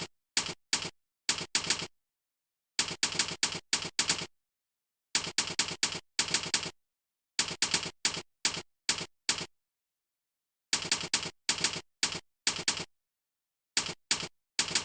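Computer keyboard keystrokes typed in short runs of quick clicks, with pauses of silence between runs.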